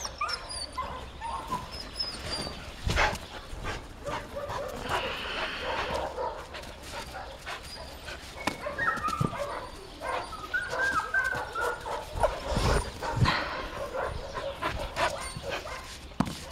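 Two dogs at play, whining and yipping in short high squeaks, with scuffling and a few heavy thumps, one about three seconds in and more around twelve seconds in.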